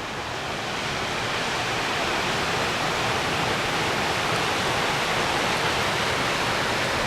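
Steady rushing of water in Water Canyon, the wash fed by the Tropic Ditch irrigation canal, growing a little louder over the first second or two and then holding even.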